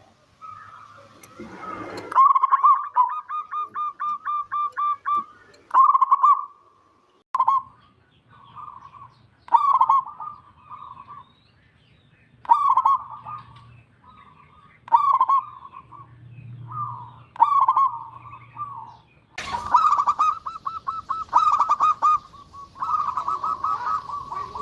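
Local Indonesian zebra dove (perkutut) cooing: a rapid run of short, even coos, followed by repeated short cooing phrases every second or two. Background noise rises near the end while the cooing goes on.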